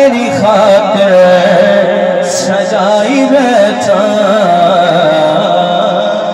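A man's solo voice singing a Punjabi naat into a microphone, amplified over a loudspeaker system. He holds long, wavering, ornamented notes.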